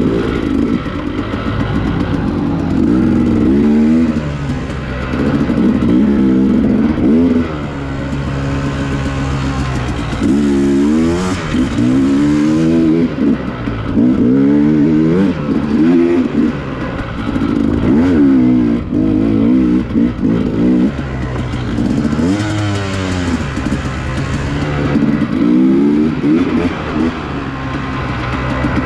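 Dirt bike engine revving up and dropping back over and over, its pitch rising and falling every one to two seconds as the rider works the throttle.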